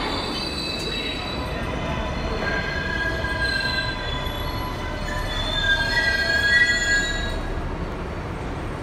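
R62A subway car rumbling along the rails, heard from inside the car. High steel-wheel squeal rides over the rumble, several shrill tones at once, loudest about six seconds in.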